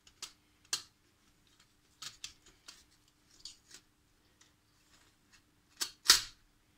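Scattered clicks, taps and short scrapes of a circuit board with metal shield cans being seated into a transceiver's metal chassis and its cables pushed into place, the loudest a longer scrape about six seconds in. A faint steady hum sits underneath.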